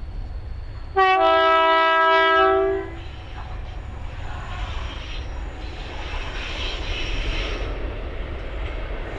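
Diesel freight locomotive's two-tone horn, the two notes sounded together for about two seconds, starting about a second in; this is the lead Colas Rail class 70. Afterwards the class 70 and class 56 diesel engines and the timber wagons' wheels run, growing louder as the train approaches.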